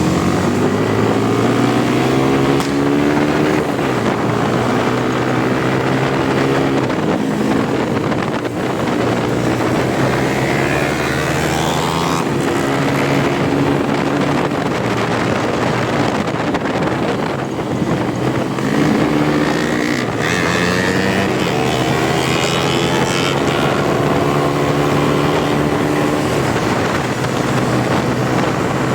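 Motorcycle engine running under way, its pitch rising and falling in steps as the rider works the throttle and gears, with some wind noise on the microphone.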